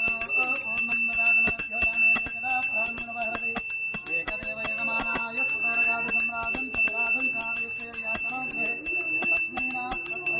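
Pooja bell rung rapidly and without pause: many clapper strikes a second over a steady high ring.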